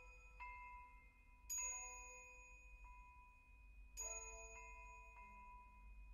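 Soft, sparse background music: a few bell-like struck notes a second or two apart, each left to ring out.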